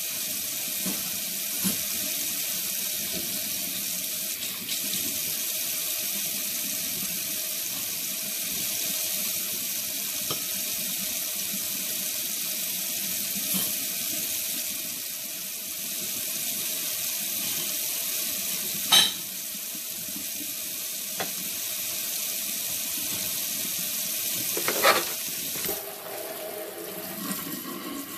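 Tap water running steadily into a sink. It is broken by a sharp clink about two-thirds of the way in and a few more near the end. The running water quietens about two seconds before the end.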